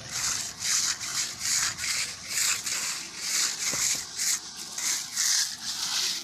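Rhythmic gritty scraping on a rough concrete or gravel surface, about two strokes a second.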